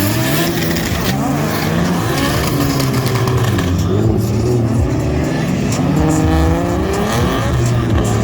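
Drift cars' engines revving hard, their pitch climbing and falling again and again, with more than one engine heard at once.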